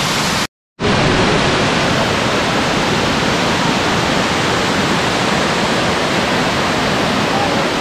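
Waterfall cascading down a steep, stepped rock face, a steady, loud rush of falling water. It cuts out for a moment about half a second in.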